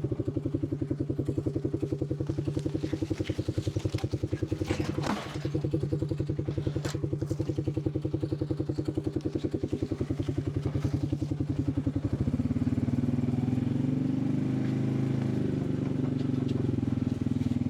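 Farm vehicle engine running steadily with a fast, even pulse, with a sharp knock about five seconds in. About twelve seconds in, its note shifts and smooths out.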